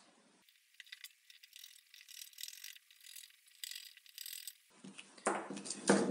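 Small precision screwdriver driving the screws of a hard drive's spindle clamp, a run of rapid fine clicks and scrapes. About five seconds in, louder knocks and rustles follow as tools are handled on the table.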